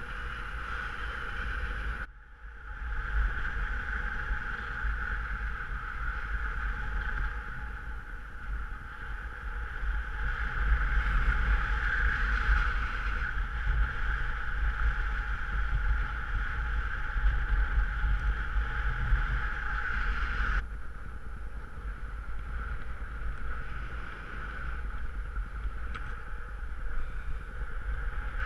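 Airflow rushing over the camera during paraglider flight: a steady hiss over a low buffeting rumble. It dips sharply for a moment about two seconds in and changes character abruptly near the twenty-second mark.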